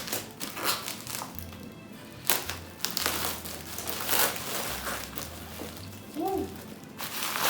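Keyboard packaging crinkling and rustling in irregular bursts as it is handled and opened, over background music with a steady bass line.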